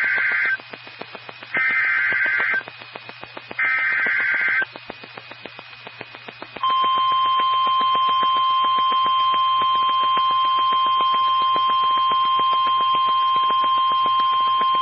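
NOAA Weather Radio Emergency Alert System alert for a severe thunderstorm warning. It opens with three short buzzing SAME data bursts, about a second each and a second apart; the first is already under way. After a pause, the steady single-pitch Weather Radio warning alarm tone comes on about six and a half seconds in. Regular clicks of radio static and a low hum sit under it.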